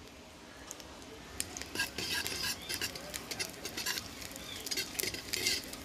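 A steel ladle stirring and scraping around an iron kadai as dried red chillies and whole spices fry in a little oil. The uneven clinks and scrapes start about a second and a half in.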